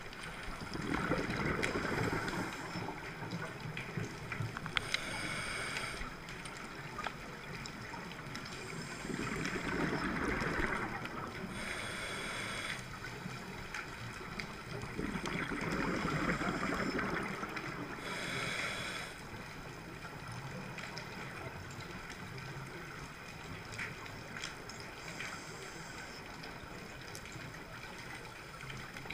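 Underwater, a scuba diver's regulator breathing: a short hiss on each inhale and a rush of exhaled bubbles, repeating every six or seven seconds, fainter near the end.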